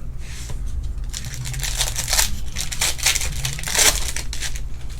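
Foil trading-card pack wrapper crinkling and tearing as it is handled and opened, in a run of rustles that peaks twice near the middle, over a steady low hum.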